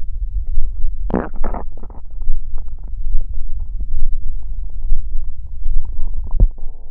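Stomach growling: a continuous low rumble with gurgles, the loudest about a second in and another shortly before the end.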